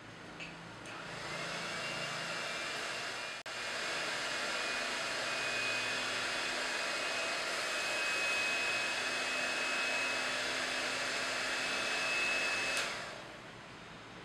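Electric hand mixer whisking egg whites in a glass bowl: it clicks on, its motor whines up to speed and runs steadily with a high whine over the rushing of the beaters, then winds down near the end. The whites are being beaten to a foam with lemon juice, the first stage of a meringue.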